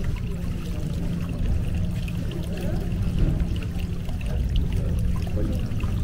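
Water running and trickling, with many small ticks, over a steady low hum.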